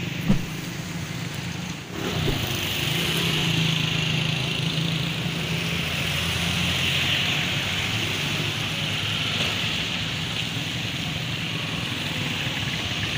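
Street traffic on a wet, flooded road: motorcycle and rickshaw engines running past over a steady hiss of tyres on wet tarmac. A single sharp knock sounds just after the start.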